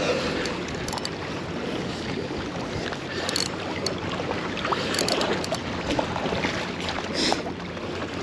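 Steady wash of saltwater waves with wind buffeting the microphone, and a few faint scattered clicks.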